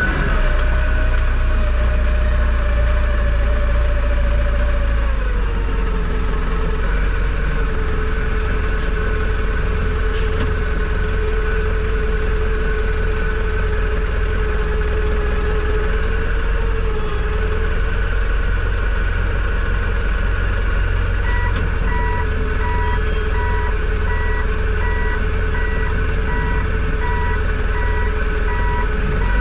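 Tractor engine running steadily with a whine that drops in pitch about five seconds in. In the last third, a reversing alarm beeps at an even pace.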